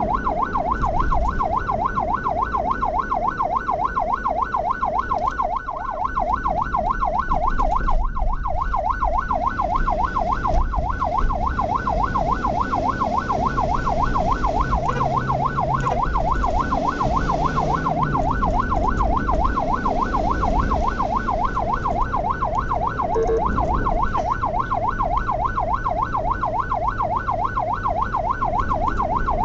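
Ambulance siren in a rapid yelp, rising and falling in pitch over and over without a break, the warning of an emergency run. Low engine and road rumble runs underneath.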